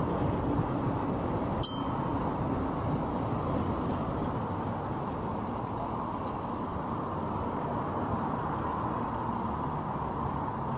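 Steady rushing wind and road noise from a mountain bike rolling along a city street, with one short bicycle-bell ding just under two seconds in.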